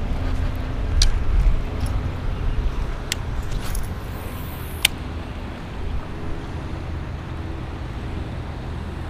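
Steady low rumble of wind on the microphone, with three sharp clicks about one, three and five seconds in, the last the loudest.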